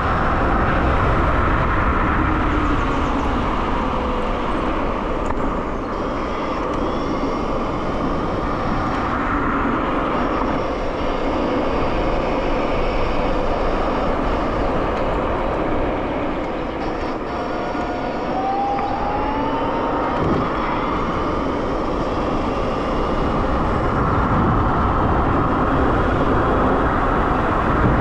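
Dualtron X Limited electric scooter riding fast on asphalt: steady wind buffeting on the microphone and tyre rumble, with faint high whining tones that come and go.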